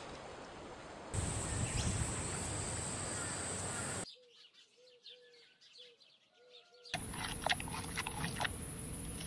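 Steady outdoor hiss, then a quiet stretch with about six short, soft chirps. It ends with the sharp crunching clicks of a giant panda chewing bamboo.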